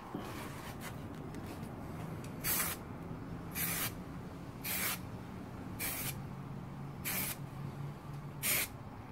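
Aerosol can of acid etch primer spraying in six short bursts, about one a second, starting about two and a half seconds in: light coats of primer going onto bare metal.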